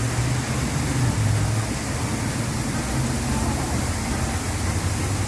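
A steady, even rushing noise with a low rumble underneath, holding constant with no distinct events.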